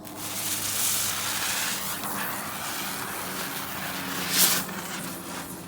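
Small ground spinner firework hissing as it burns, starting suddenly and running steadily, with a brief louder whoosh about four and a half seconds in.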